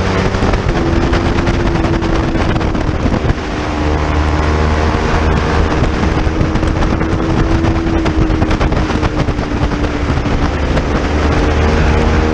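Sport motorcycle engine running hard at track speed, heard through an onboard camera with wind rushing over the microphone. The engine note holds fairly steady, with a brief dip in level about three seconds in and a slight rise near the end.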